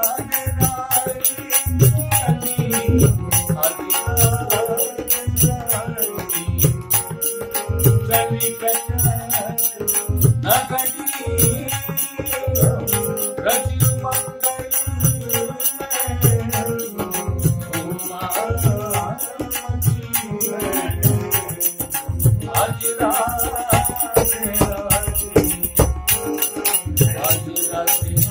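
Kumauni classical Holi song: a man singing to harmonium accompaniment, with small hand cymbals (manjira) ringing on the beat and a steady low beat underneath.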